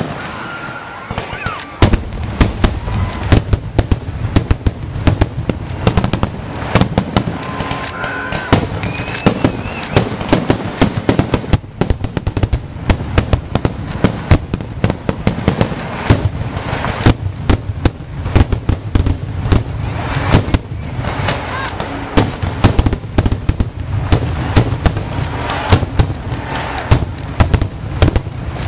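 Aerial fireworks shells bursting in quick succession: several sharp bangs a second overlapping with crackle, over a deep continuous rumble that thickens about two seconds in.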